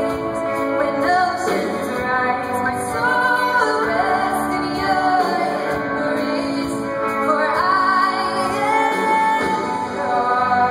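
Live worship band playing a slow song, with a woman singing the lead melody over the band.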